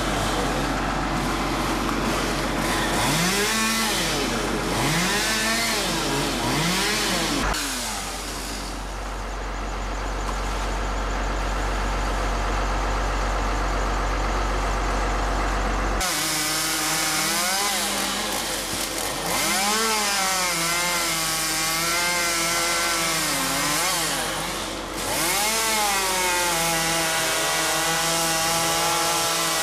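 Two-stroke chainsaw running while cutting, its engine revving up and bogging down again and again, the pitch swooping up and down about once a second in places. A steady low hum lies under the first half and cuts off suddenly about halfway through.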